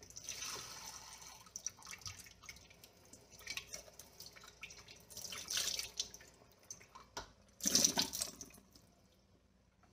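Kitchen tap water running into the sink and splashing over a cast iron cornbread skillet as it is washed, coming and going in several rushes with small knocks of the pan in between; the loudest rush comes about three-quarters of the way through as the pan is rinsed off.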